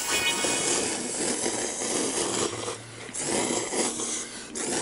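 People slurping instant cup ramyeon noodles: long, loud noisy sucking slurps, with a short break about three seconds in.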